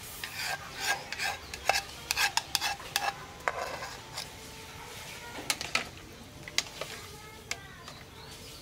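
A wooden-handled ladle scraping and knocking against a bowl as the last of the canned fish in tomato sauce is scraped into the soup pot, a quick run of sharp scrapes and clacks, then a few more strokes as the ladle stirs the soup.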